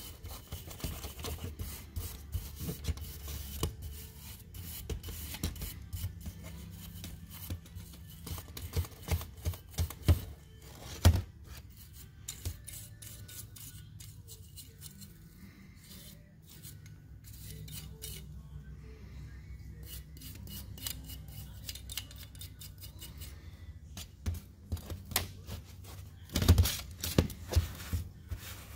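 A small steel hand tool scraping and clicking against the grimy metal body of a Carter BBS one-barrel carburetor as caked-on gunk is picked and scraped off. There are a couple of louder clanks of metal against metal, one about a third of the way in and one near the end.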